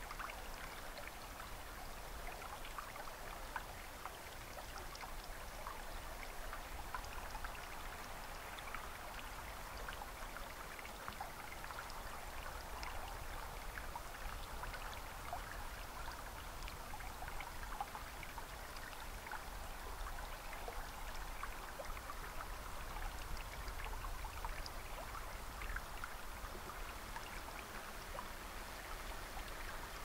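Steady trickle of water flowing in an irrigation canal, with many small splashy ticks over a low, even rumble.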